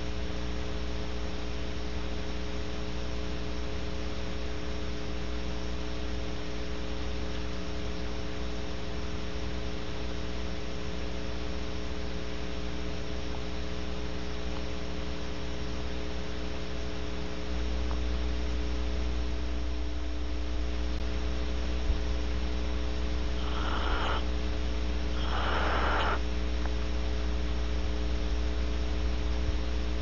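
Steady electrical mains hum on the barn owl nest camera's audio. In the last third come two short raspy hisses from the barn owls, a second and a half apart, and a third at the very end.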